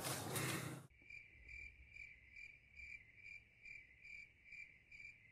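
Louder noise cuts off abruptly about a second in, leaving a cricket chirping steadily, about two short high chirps a second.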